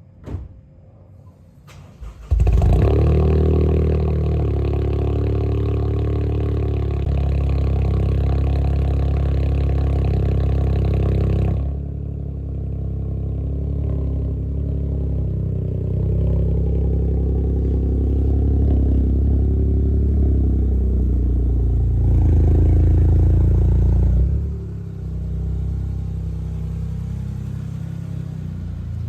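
Toyota GR Corolla's turbocharged three-cylinder engine with an HKS aftermarket exhaust starting up about two seconds in, flaring and then running at a high idle. Near the middle the idle drops to a lower, quieter speed; it rises briefly once more near the end, then settles again.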